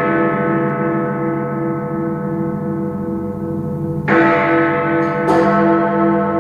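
Big Ben's great bells in London ringing: the long, pulsing hum of an earlier strike dies away, then a heavy strike about four seconds in and another a second later ring out over it.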